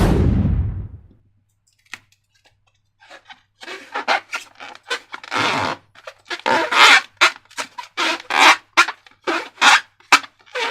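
A single heavy thump that fades over about a second, then, from about three seconds in, a quick irregular run of wet squelching squishes from slime being squeezed and worked.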